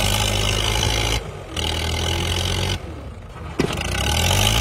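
Old Mahindra tractor's diesel engine running flat out under heavy load, its rear tyres spinning and digging into sand. The sound drops away sharply twice and comes back, and the revs rise near the end.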